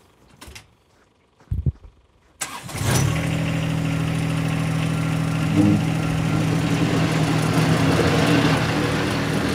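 A couple of sharp knocks, then about two and a half seconds in a John Deere 1025R subcompact tractor's three-cylinder diesel engine comes in abruptly and runs steadily as the tractor works its rear blade.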